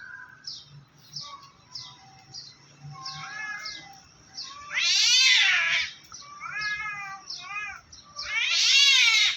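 Two cats yowling at each other in drawn-out, rising and falling wails: threat calls in a standoff, not a physical fight. The two loudest wails come about five seconds in and near the end, with shorter ones between.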